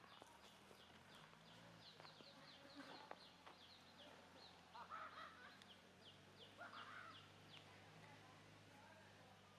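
Faint animal calls: a rapid run of short, high chirps, about three to four a second, stopping about three-quarters of the way through, with two louder calls about halfway through.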